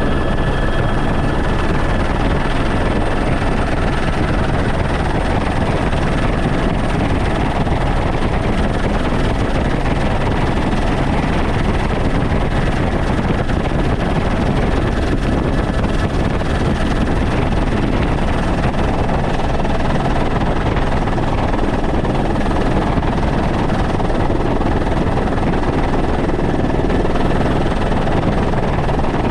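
Helicopter in flight heard from inside its cabin: loud, steady rotor and engine noise that does not change.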